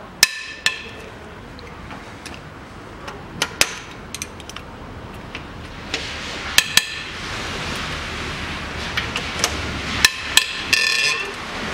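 Sharp metallic cracks and clinks, about a dozen scattered through, from a tall 12-point socket and extension on a Toyota 3S-FE engine's cylinder head bolts as the bolts are broken loose. A few of the clinks ring briefly, at the start and near the end.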